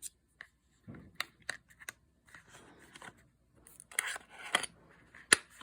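Small sharp clicks and brief rustling from a compact precision screwdriver kit being handled, with a louder click near the end.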